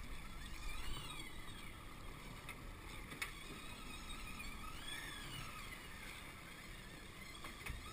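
Big-game fishing reel's drag whining in slow rising and falling swells as a hooked southern bluefin tuna pulls line against a light drag setting, over a steady wash of wind and sea noise.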